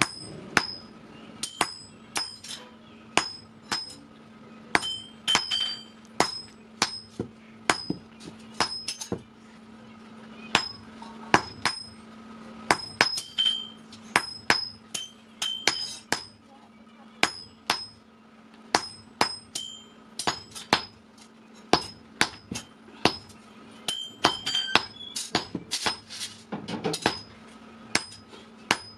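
Hand hammer forging steel on an anvil: a run of sharp blows, about two a second in groups with short pauses, each with a bright metallic ring.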